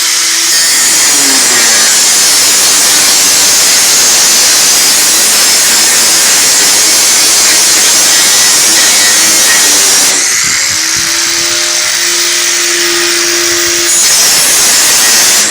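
Electric power tool cutting metal: a loud, steady grinding hiss over the motor's whine. About ten seconds in the cut eases and the whine comes through plainer, then the tool bites in again near the end.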